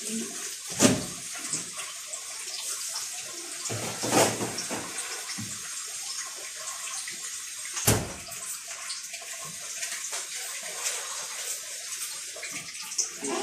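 Water running steadily into a stainless steel kitchen sink, with three sharp knocks standing out over it, about one, four and eight seconds in.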